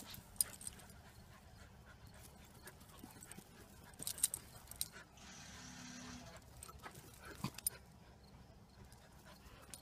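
Great Pyrenees puppies playing: light panting and scuffling, with scattered sharp clicks, a cluster of them about four seconds in and another near the end.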